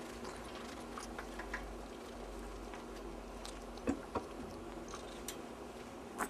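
Scattered light taps and scratches of a Singapura kitten at play, with two sharper knocks about four seconds in and another near the end, over a steady low hum.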